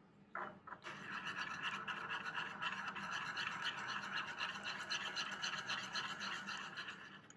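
Metal spoon stirring and scraping thick mayonnaise, sriracha and tobiko around a small ceramic bowl, a fast continuous scraping with many small ticks. It begins with a tap about half a second in and dies away just before the end.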